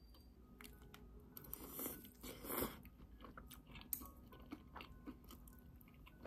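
A person eating a mouthful of mala xiang guo (glass noodles and cabbage): chewing and mouth sounds, loudest in two short bursts about two seconds in, followed by light clicks of metal chopsticks and spoon.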